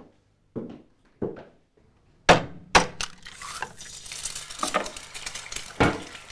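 Kitchen clatter of a pan and utensils, a few knocks and then a loud clank a little over two seconds in, followed by food frying in a hot pan: a steady sizzle starting about three seconds in, with more knocks over it.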